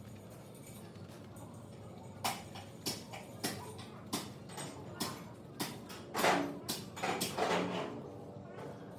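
A run of sharp knocks or clicks, about one every half second or so, starting around two seconds in and loudest and most bunched between about six and eight seconds in.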